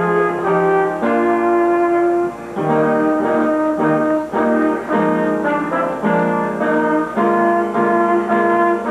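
Brass band playing a tune, trumpets and trombones, the notes changing two or three times a second.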